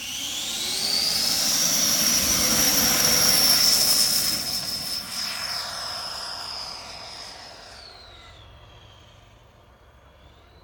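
An F5 model jet's twin 110 mm Hacker Streamfan electric ducted fans with Hacker E50 motors, spooling up to a high-pitched whine at full power for the takeoff. The whine holds steady, then fades and drops in pitch as the jet flies away.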